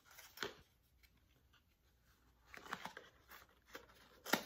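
Quiet handling of beauty products and their packaging: a few faint rustles and light knocks, then a sharp click near the end.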